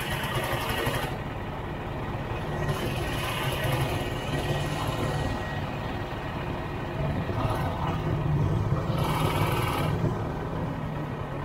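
Snowmobile engine running at low speed with a steady low hum, with three short spells of hiss laid over it.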